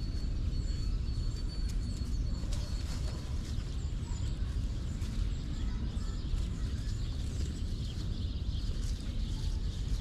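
Small wild songbirds giving faint, short high chirps now and then over a steady low outdoor rumble. A thin, high, steady note is heard for roughly the first three seconds.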